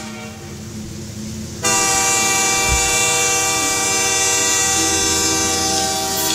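A train-horn imitation played by the band as a song intro: a steady held chord, softer at first, then jumping louder about one and a half seconds in and holding.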